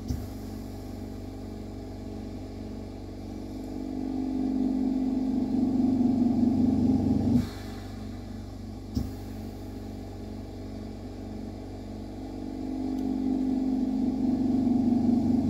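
A steady machine hum, with a low motor drone that swells over a few seconds and then cuts off suddenly. This happens twice: about seven seconds in and again at the end. A single sharp click comes about nine seconds in.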